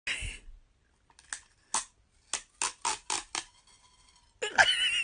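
A short noisy burst with a low thump, then about eight sharp clicks spread over two seconds, and a short, louder pitched sound near the end.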